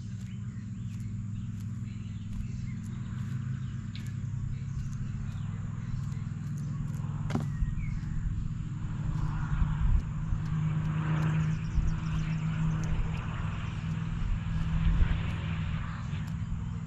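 A steady low engine-like drone runs throughout, with one sharp click about seven seconds in and a faint higher-pitched murmur in the second half.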